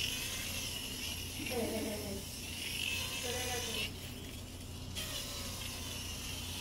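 Hurricane cordless foot drill sanding a heel to remove callus: a steady high-pitched hiss of the sanding pad on the skin, which stops for about a second near the middle as the pad is lifted off, then starts again.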